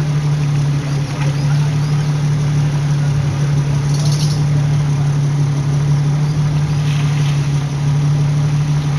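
Off-road vehicle engine running at a steady low speed, a constant low drone, with a brief high-pitched sound about four seconds in.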